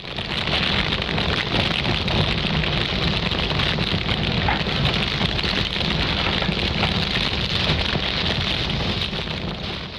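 Steady rain, a dense even hiss of falling rain with no music over it, easing off slightly near the end.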